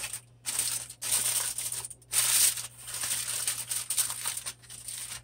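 Aluminum foil crinkling and crackling in irregular bursts as hands crimp it tightly around the rim of a baking pan, loudest about two seconds in.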